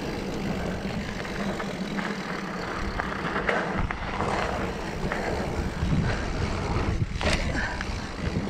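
Mountain bike riding on dirt singletrack: tyres rolling over the dirt and the bike rattling over bumps, with a steady low rumble and scattered clicks and knocks.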